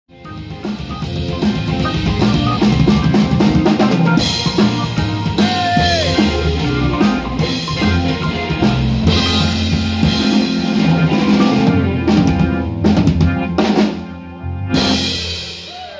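Live blues band playing: drum kit, electric bass and electric guitar, with a bent guitar note about six seconds in. The band drops back and lands a final hit near the end.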